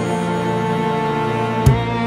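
Background music: soft, sustained chords with a single percussion stroke near the end, as a beat begins.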